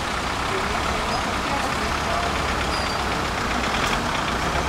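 Steady street traffic on a wet cobblestone road: cars passing with a constant noise of tyres and engines, a low engine rumble underneath.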